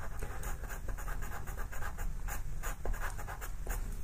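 Pastel pencil scratching over paper in quick short strokes, several a second, as colour is worked into the drawing.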